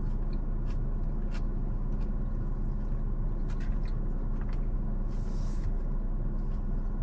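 Steady low hum of a car idling, heard from inside the cabin, with scattered small clicks of chewing and a brief rustle about five seconds in as salad is eaten.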